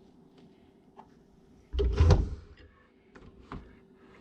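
A dull thump about two seconds in, with a few light clicks before and after it: items being handled and set down on a surface.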